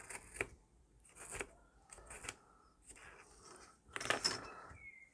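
Craft knife cutting through 5mm foam board along a steel ruler: a series of short, faint slicing strokes about once a second, the strongest about four seconds in.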